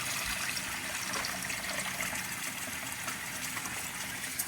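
Water running steadily from a kitchen tap into a pot of rice at the sink.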